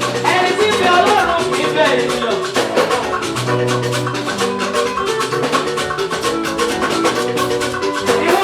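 Live praise band playing upbeat music with a busy, steady percussion beat.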